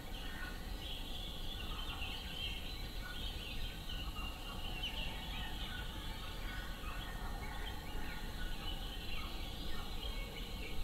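Outdoor ambience of many birds chirping at once, a dense, steady chatter of small high calls.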